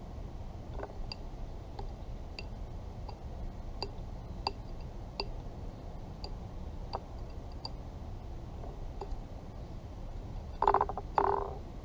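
American robin pecking mealworms from a terracotta saucer: scattered light clicks of its beak on the clay dish, then two louder knocks near the end as it jabs its bill into the dish.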